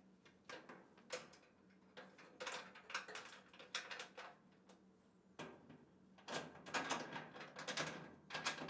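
Scattered light clicks and knocks of a fire cabinet door being fitted into its fittings and locked tight, coming thicker near the end.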